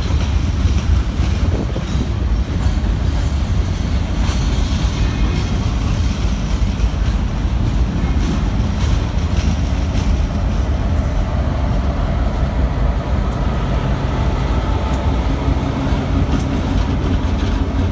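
Freight cars of a work train rolling past with a steady low rumble and scattered clicks of wheels over rail joints. Over the last few seconds a steadier engine hum comes in as the yellow GREX unit at the rear draws near.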